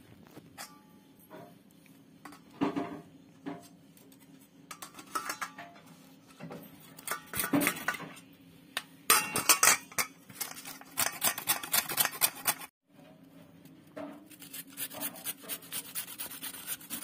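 Carrots being grated on a stainless steel grater: scattered clinks of metal early on, then runs of quick rasping strokes with the grater knocking against a steel plate, loudest about two-thirds of the way through. The sound cuts out for an instant about three-quarters of the way through, and a faint steady hum sits underneath.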